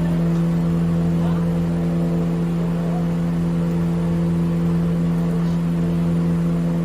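A motor running steadily at a constant pitch, an unbroken drone.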